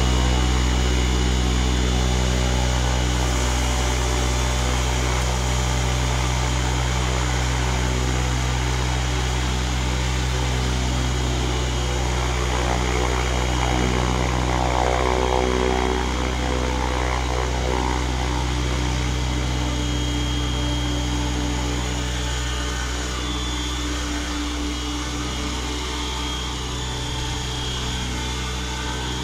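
Align T-Rex 700E DFC electric RC helicopter running with its main rotor spinning at speed, a steady whine of many tones, lifting into a low hover near the end.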